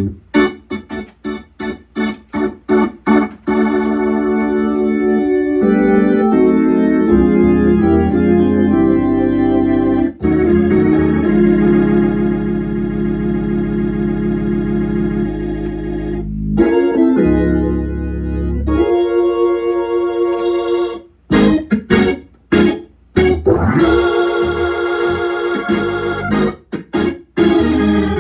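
Hammond C3 organ played through a two-speed Leslie 22R speaker: short staccato chords at first, then held chords over a bass line, a long sustained chord in the middle, and more short chord stabs before it settles into held chords again.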